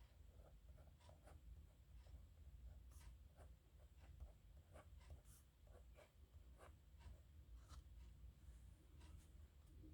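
Dip nib pen scratching on paper in many short, irregular strokes, faint, over a steady low hum.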